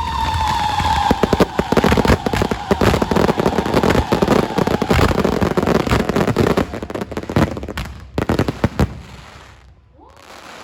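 Fireworks going off: a dense, rapid crackle of bangs and pops, with a falling whistle in the first few seconds. The crackling thins out and stops about nine seconds in.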